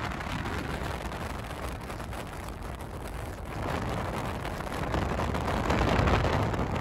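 Road and wind noise of a car driving on the highway, a steady rush that swells about four seconds in and again near the end.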